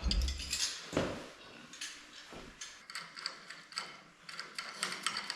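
Metal hand-tool work on bolts: a knock about a second in, then a run of short, irregular metal clicks and clinks.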